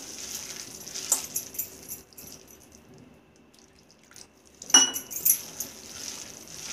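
Hands squishing and kneading a wet gram-flour and coriander batter in a steel bowl, with glass bangles clinking against each other and the bowl. A little water is poured in from a glass, and about two-thirds of the way through a single sharp clink rings briefly.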